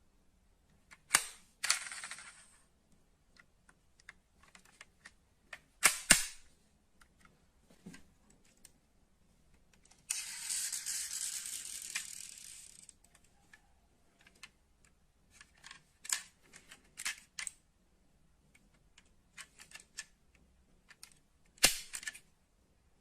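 Sharp clicks and clacks of die-cast metal model cars being handled, coming singly and in pairs, with the loudest near the start, about six seconds in and near the end. About ten seconds in, a rushing rustle lasts about three seconds.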